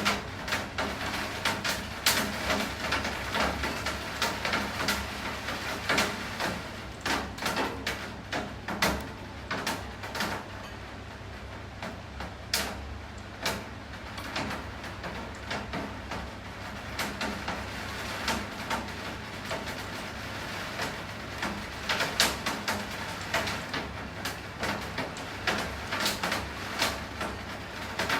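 Steady rain with many irregular sharp taps and drips of drops striking a nearby hard surface. The taps thin out for a few seconds near the middle.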